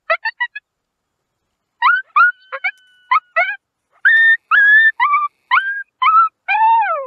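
Coyote yipping: a quick run of short, high yips that rise in pitch, a pause of about a second, then more yips that grow longer and end in a drawn-out, falling howl.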